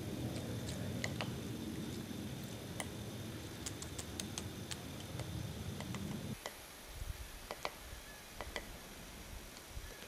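Black-backed woodpecker pecking at a tree trunk: irregular sharp taps, a few a second, over a low rumble that cuts off suddenly about six seconds in.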